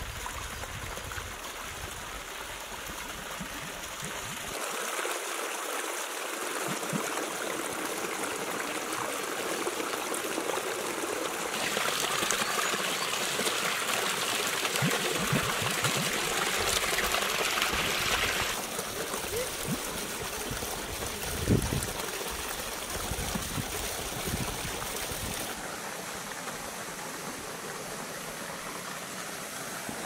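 A small waterfall spilling over rocks into a pond: steady splashing and rushing, loudest in the middle, with the level changing in several sudden steps. A single short knock about two-thirds of the way through.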